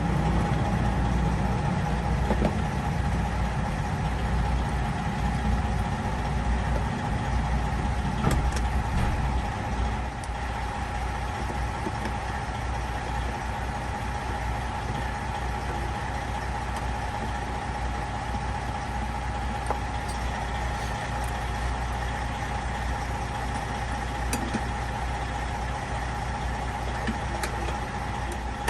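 Truck diesel engine idling steadily, a low rumble with a constant hum above it, a little louder in the first ten seconds; a few faint clicks from handling parts.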